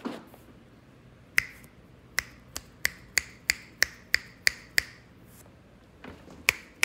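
Fingers snapping beside a deaf kitten's ear as a hearing test, which the kitten ignores. There is one sharp snap, then a quick run of about three snaps a second, a pause, and more snaps near the end.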